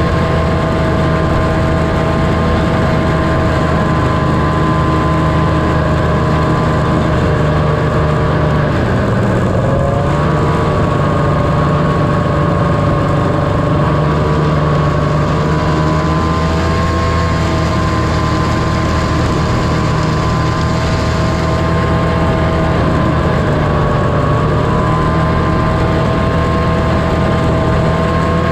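1978 John Deere Liquifire snowmobile's two-stroke engine running steadily at trail speed. Its pitch dips briefly about nine seconds in and again near twenty-four seconds, then comes back up.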